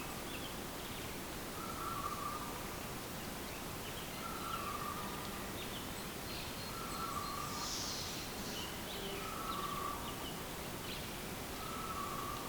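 A bird repeating one short call about every two and a half seconds, five times over, with other birds chirping faintly around it, over a steady rustling hiss of wind and open air.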